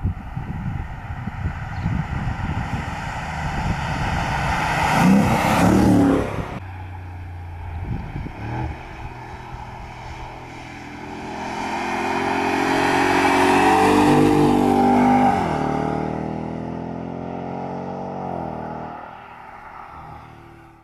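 2024 Ford Mustang GT's 5.0-litre V8 revving up under acceleration, rising to a peak about five seconds in and cutting off sharply. After a short blip, it climbs through a second long rise and then eases off.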